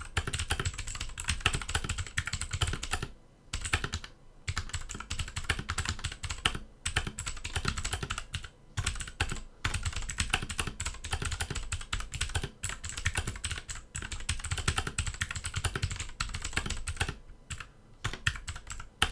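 Fast, continuous typing on a mechanical keyboard fitted with Outemu switches: a dense run of key clicks, broken by a few brief pauses.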